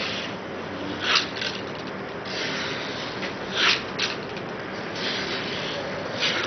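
Utility knife blade slicing through a silicone rubber mold, cutting it into strips: several short rasping strokes over a steady hiss.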